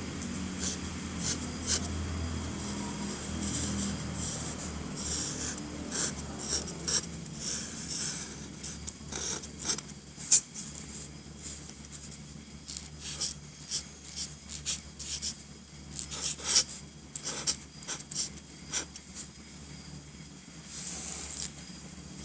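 Artline felt-tip marker drawing on paper: quick short strokes in irregular runs, a few of them sharper and louder.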